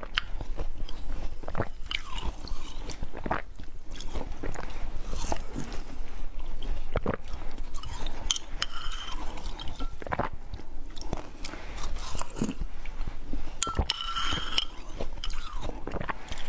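Slushy ice being bitten and chewed with close, crackling crunches, and a metal spoon now and then scraping and clinking against a glass cup with a short ring.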